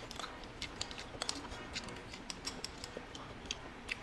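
Metal spoon scraping and tapping inside a crimped aluminium foil cup while scooping out grilled balut: a scatter of small, sharp, irregular clicks and foil crinkles.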